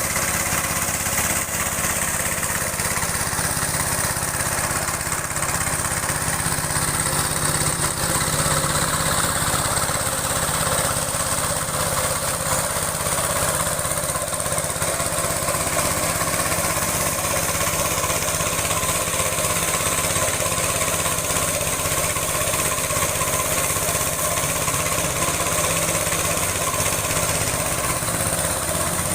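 Small engine running steadily at a constant speed, driving a high-pressure washer pump on a test run.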